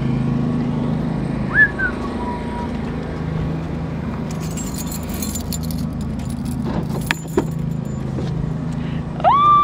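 Keys jangling and clicks from a car door being unlocked and opened, over the steady low hum of an engine running. A short held tone sounds near the end.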